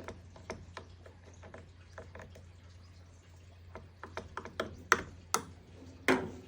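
Scattered light clicks and taps from handling a propane torch and its cylinder after the flame has gone out on a low tank, with three sharper knocks near the end, over a steady low hum.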